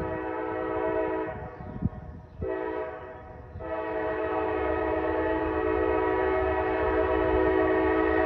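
Diesel locomotive's multi-chime air horn blowing for a grade crossing. A blast breaks off about two seconds in, a short blast follows, then a long held blast from about three and a half seconds in: the tail of the crossing signal. A low engine rumble runs underneath.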